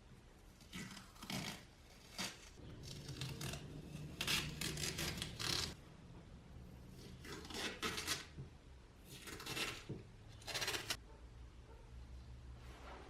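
Hand-worked rasping and rubbing strokes on a surface, coming in irregular bursts of under a second to about a second and a half each.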